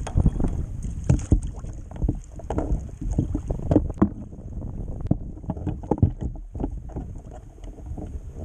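Choppy sea slapping and splashing against a fishing kayak's hull, with wind buffeting the microphone and irregular knocks from the boat and gear.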